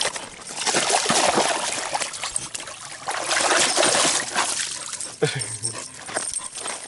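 A dog splashing and wading through shallow lake water at a rocky shore, the splashing loudest through the first two thirds, then quieter as it clambers out over the stones.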